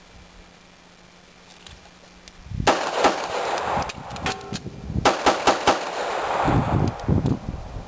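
Pistol fire in the FAST drill: about two and a half seconds in, two quick shots, then a pause with small clicks of a magazine reload, then four quick shots in a row. Each shot is followed by a long echo.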